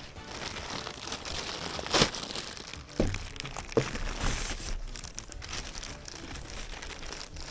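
Packaging being handled and crinkled, with irregular rustling and a few sharp clicks, the loudest about two seconds in.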